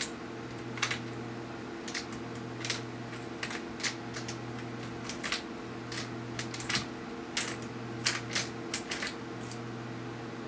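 Light metallic clicks and taps, irregular and a few a second, of a small screwdriver and tiny screws being worked into the metal side brackets of a laptop screen. A steady low hum runs underneath.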